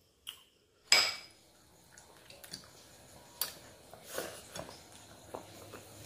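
A sharp dish clatter about a second in, the loudest sound, as the plastic serving dish is done with at the plate. It is followed by scattered light clicks and mouth sounds of eating goat stew and rice by hand.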